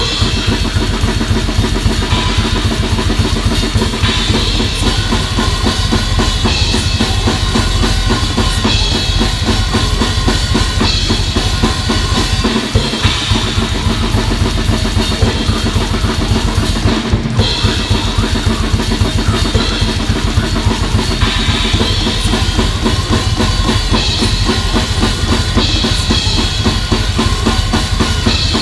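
Drum kit played fast and without a break: a rapid kick drum under snare hits and crashing Sabian and Meinl cymbals.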